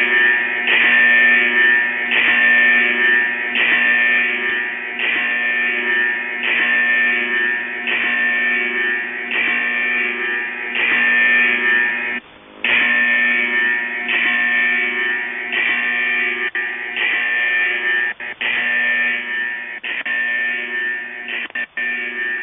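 Shortwave receiver audio of the 6911 kHz music-loop channel marker: a short music clip repeats about once a second, heard through a narrow receiver bandwidth with steady tones running under it. The signal cuts out briefly about halfway through, and there are a few shorter dropouts near the end.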